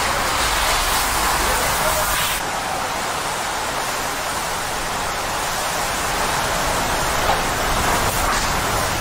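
Hurricane wind and heavy rain, a steady rushing noise. About two and a half seconds in, the tone changes suddenly and the sound drops slightly in level.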